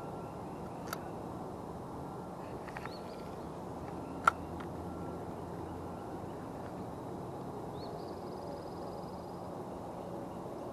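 A few sharp clicks from handling a spinning reel, the loudest about four seconds in, over a steady outdoor hiss with faint bird calls, one a short buzzy trill near the end.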